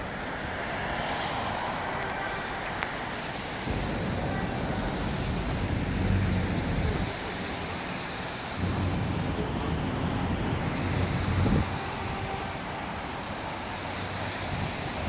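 City street traffic on a wet road: a steady wash of tyre and engine noise, with two louder stretches of engine rumble as vehicles pass, from about four to seven seconds and from about nine to twelve seconds in.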